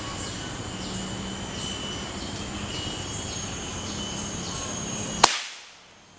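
A steady chorus of forest insects (cicadas and crickets) with short chirps repeating, broken about five seconds in by a single sharp crack of an air rifle shot fired up into the tree canopy.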